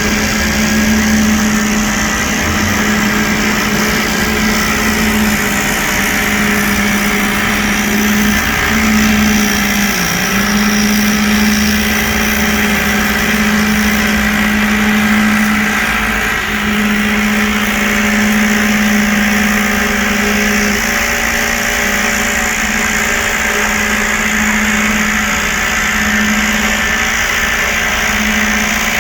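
Construction machinery engine running steadily, a constant droning hum with a strong low tone that dips briefly a couple of times.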